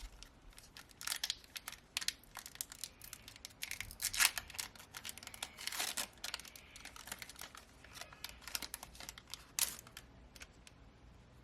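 A foil Pokémon booster pack wrapper being torn open and crinkled by hand, in a string of irregular rustles and crackles.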